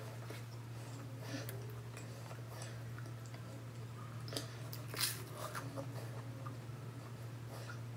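A person chewing toasted bread, with small wet mouth sounds and crunches, over a steady low hum; a sharp click stands out about five seconds in.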